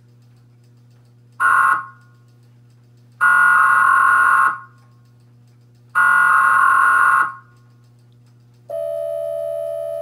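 Emergency Alert System required monthly test coming through a TV set's speaker. Three bursts of SAME header data play, the first short and the next two longer, each about a second and a half apart. Near the end the steady two-tone attention signal begins.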